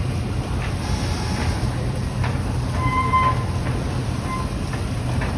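Steady low rumble of running machinery on fishing boats moored side by side, with a few faint knocks. A short high tone sounds about three seconds in, and a weaker one a little later.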